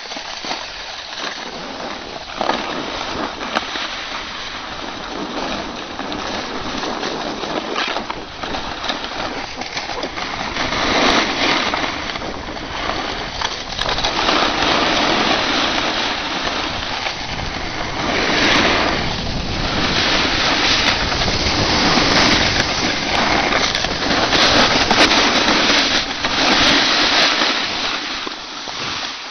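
Snowboard sliding down a groomed slope: a continuous scraping hiss of the board on packed snow, mixed with wind rushing over the microphone. It grows louder after the first third, swells several times, and eases just before the end as the ride slows.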